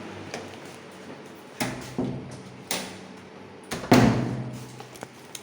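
A door banging shut about four seconds in, the loudest sound, after several lighter knocks and bumps, over a steady low hum.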